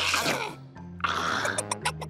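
Cartoon background music with held low notes, ending in a quick run of short, sharp notes.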